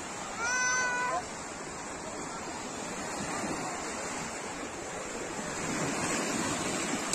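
Waves washing onto a sandy beach as a steady rushing hiss that swells a little near the end. About half a second in there is a short high-pitched cry lasting under a second.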